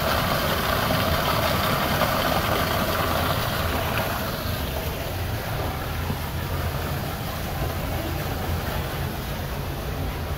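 Indoor garden waterfall pouring onto rocks: a steady rush of falling water, louder for the first few seconds and then somewhat softer.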